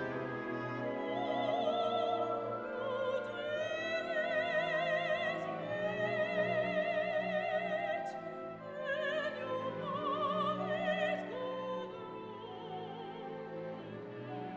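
Operatic singing with vibrato over an orchestral accompaniment, softening near the end.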